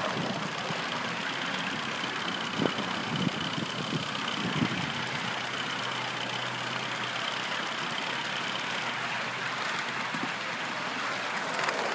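3½-inch gauge live-steam model of an LMS Stanier 8F 2-8-0 locomotive running under steam at close range: a steady hiss with a faint high-pitched tone, and a few knocks between about three and five seconds in.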